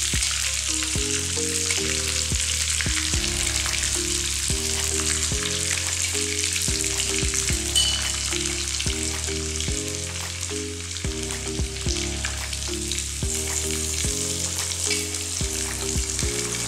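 Beef meatballs sizzling in hot oil in a wok, a steady crackling hiss. Background music with a bass line and melody plays along.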